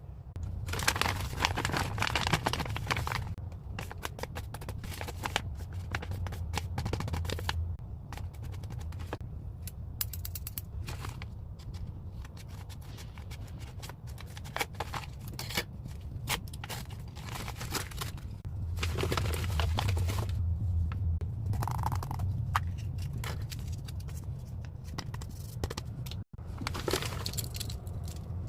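A homemade paper blind bag being handled and opened by hand: crinkling and rustling of paper and packaging, with many scattered clicks and taps, over a low steady hum.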